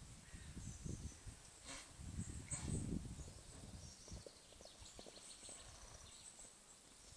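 Faint outdoor sounds of a horse and a dog at play: irregular low thuds and rustles, busiest in the first three seconds, under thin high chirping.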